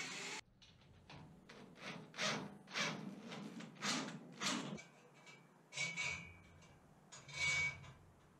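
A cordless drill runs and stops abruptly under half a second in. Then come a run of short rasping strokes, about two a second, as a hand wrench works a bolt on a steel trailer coupler, and two longer scraping sounds.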